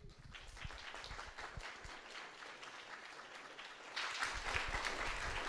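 Audience applauding, the clapping growing louder about four seconds in.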